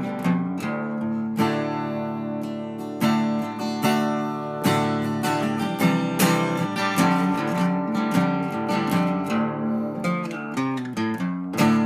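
Background music played on acoustic guitar, a run of plucked and strummed notes and chords.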